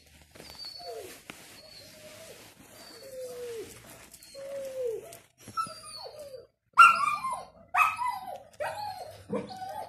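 A five-week-old German shepherd puppy whining in a string of falling whimpers, then giving sharp, louder yelping barks about once a second from about seven seconds in.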